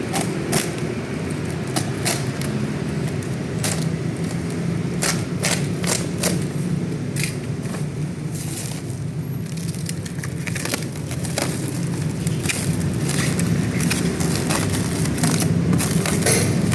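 Irregular crackling and clicking of packaging material being handled and pulled open, over a steady low hum.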